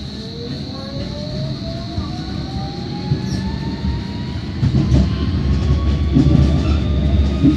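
Electric tram accelerating away from a stop, heard from inside: the traction motor whine rises steadily in pitch. Wheel and track rumble builds underneath and grows louder about five seconds in, with a few clicks from the rails.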